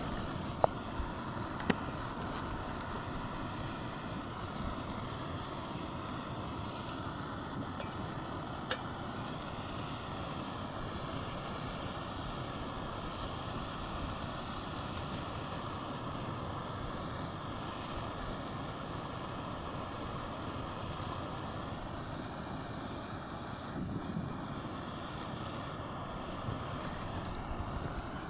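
Wind blowing steadily against a tent, a constant rushing noise with no let-up, with a few sharp ticks in the first several seconds.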